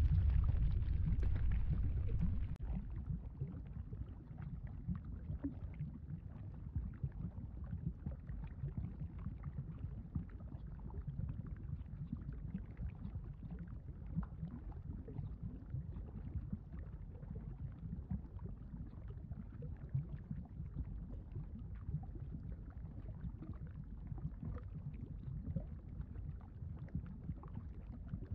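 Low rumbling, gurgling sound effect of bubbling lava, full of small irregular pops. It is louder for the first two and a half seconds, then settles to a steady, quieter rumble.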